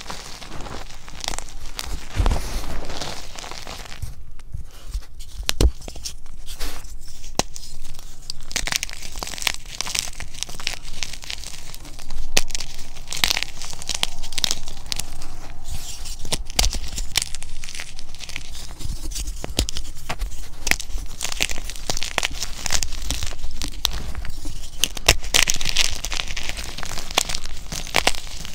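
Hands crushing and crumbling soft gym chalk, loose powder and reformed chalk pieces, a continuous dry crunching and crackling with many sharp snaps. It eases off for a few seconds about four seconds in, then picks up again.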